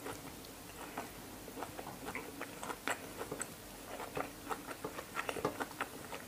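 Close-up chewing of a mouthful of pork liver salad and sticky rice, mostly soft wet mouth clicks scattered throughout. Light scrapes and knocks of a wooden spoon on the metal tray come in as rice is scooped.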